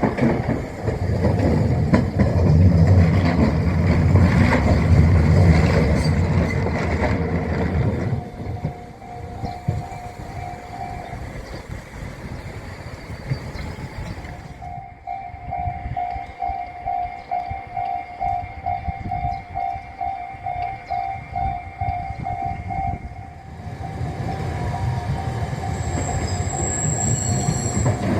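Railway level-crossing alarm ringing with a train passing. For the first several seconds there is a heavy rumble with wheel clatter; from about the middle the alarm rings alone as an even clang about twice a second, then stops. Another rumble builds near the end.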